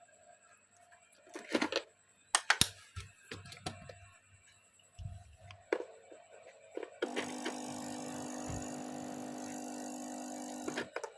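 Handling clicks and knocks, then a small electric device runs with a steady buzzing whir for about four seconds before cutting off.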